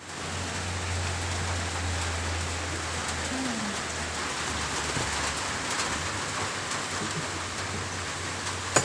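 A steady, even hiss with a low hum beneath it, and a few faint light ticks of a spoon against a plastic bowl of chopped tomatoes.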